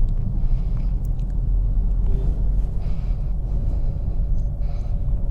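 Inside the cabin of a Honda City sedan driving in second gear: a steady low road-and-engine rumble, with the engine making no extra noise. Faint hiss swells up briefly about three times.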